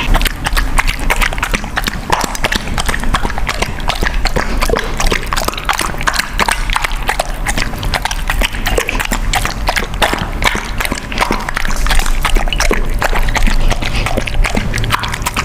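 Rapid wet lapping and tongue clicks as a kitten, then a large dog, licks a milky liquid off a plate right in front of the microphone.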